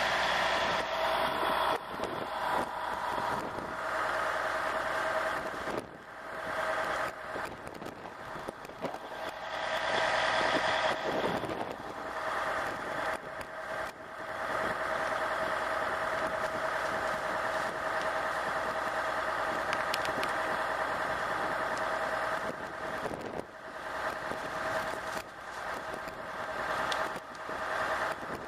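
Fire truck's engine and bumper-mounted pump running steadily under load, supplying a hose line that is spraying water, with a few brief dips in the sound.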